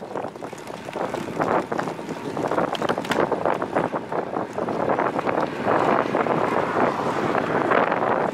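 Wind buffeting a bicycle's handlebar-mounted camera microphone while riding, an uneven rushing noise with short gusts.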